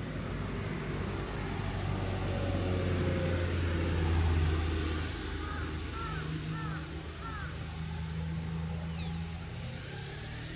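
Low rumble of road traffic, a vehicle passing and loudest about four seconds in, over the open park. Three short high calls about six seconds in and a few quick falling chirps near the end.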